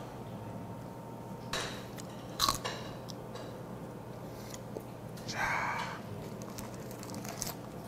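Crisp lettuce leaves crackling as a lettuce wrap is folded in the hands, then bitten into and crunched.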